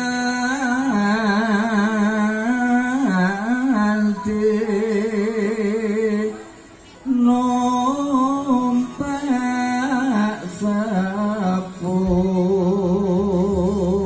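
Music with a slow sung melody held in long notes with wide vibrato; it breaks off briefly about six seconds in, then resumes.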